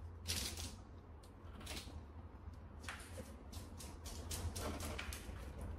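Quiet room with a steady low hum, and a few soft clicks and rustles of a small object being handled.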